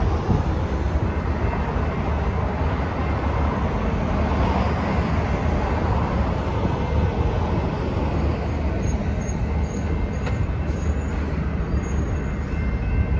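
Steady low rumble of rail yard and train noise, with no horn or distinct event.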